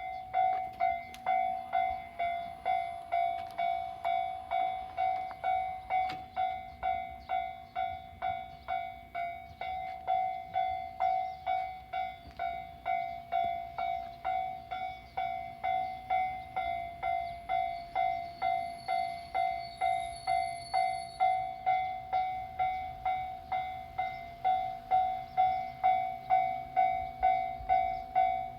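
Japanese railway level-crossing warning bell ringing steadily, about two strikes a second, as it signals the barriers down, though no train comes through.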